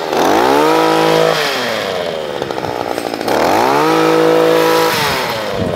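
Stihl KombiSystem power head driving a rotating sweeper-brush attachment over grass and dirt. The engine is throttled up twice, holding high speed for about a second each time and dropping back to a lower, rougher speed in between and near the end.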